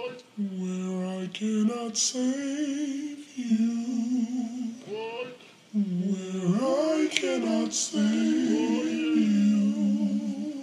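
A single unaccompanied voice singing long held notes, stepping from pitch to pitch about once a second, with a few short sharp clicks.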